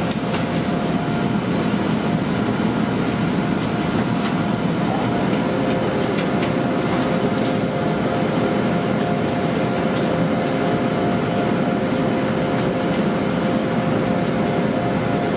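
Steady machine din of automatic steam shirt-ironing machines and other laundry pressing machinery running, with a steady humming tone throughout and a second, lower hum joining about five seconds in. Scattered short clicks sound over the din.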